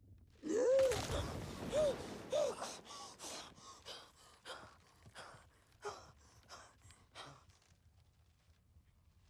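A sudden run of gasping: three short cries that rise and fall in pitch, then breathy gasps about twice a second that grow fainter and stop near the end.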